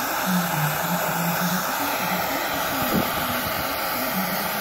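Hand-held gas torch burning with a steady hiss and a wavering low hum that comes and goes. The torch's fuel cylinder is running low and it is making funny noises.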